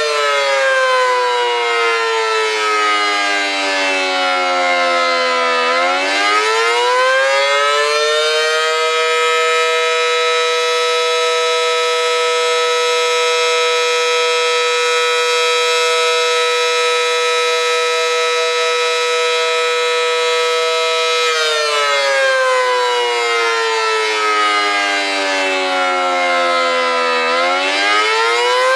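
Federal Signal Model 5T warning siren with a 9/12-port chopper sounding its two-note chord in a rising-and-falling wail, as in the attack signal. The pitch winds down over the first several seconds, climbs back up and holds steady for about twelve seconds, then winds down again and starts climbing near the end.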